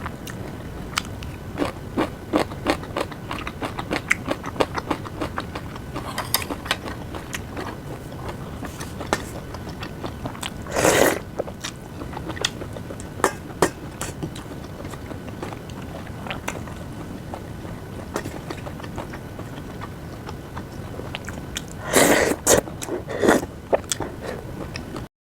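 Close-miked eating sounds: a person chewing and biting food with many small wet clicks, and louder bursts about eleven seconds in and again near the end.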